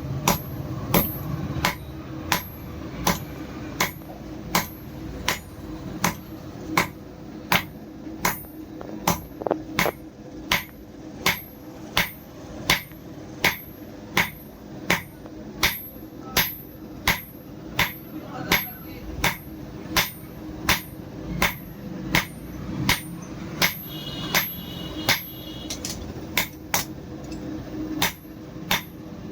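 Hammer blows on steel over an anvil, struck in a steady rhythm of about three blows every two seconds, each with a short metallic ring, as bearing steel is forged toward a kukri blade. A steady low hum runs underneath.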